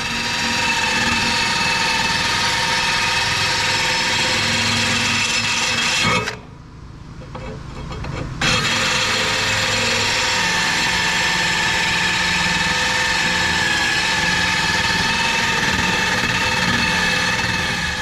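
Drill spinning a drill-mounted sharpening attachment against a lawnmower blade still on the mower, a steady grinding whine of stone on steel. It stops for about two seconds near the middle, then starts again and runs until just before the end.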